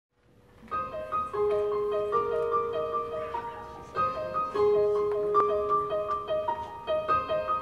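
Piano playing a song's introduction: a bouncy figure of short repeated notes over longer held lower notes, starting just under a second in.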